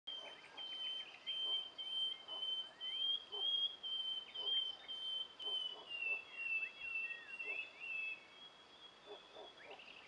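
Countryside birds singing and calling, with short falling chirps and soft low notes repeating roughly once a second. Under them runs a steady high-pitched tone that dips slightly about six seconds in and stops after about eight seconds.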